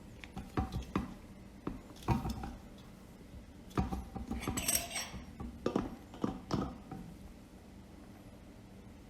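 Light clicks and knocks of small hard parts being handled, with a brief rustle about halfway, as a shut-off valve is fitted onto a reverse osmosis storage tank; the handling stops about seven seconds in.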